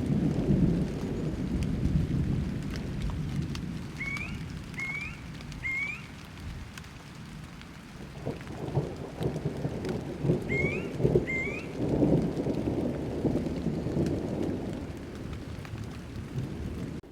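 Thunderstorm: steady rain with low rolling thunder that swells at the start and again past the middle. A few short rising chirps come through it, three about four seconds in and two more later.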